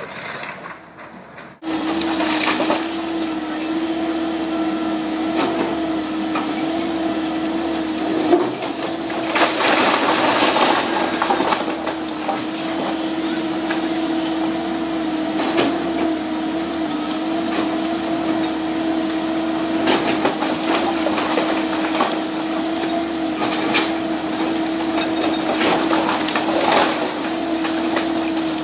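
A demolition machine's engine runs with a steady hum, and wood cracks and knocks at intervals as the termite-damaged house is torn down. The sound starts suddenly about a second and a half in.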